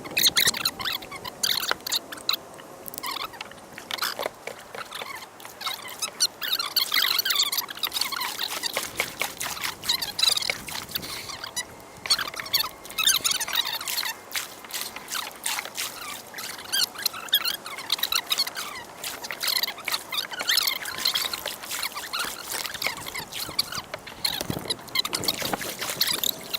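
Water splashing and trickling in many small irregular spatters.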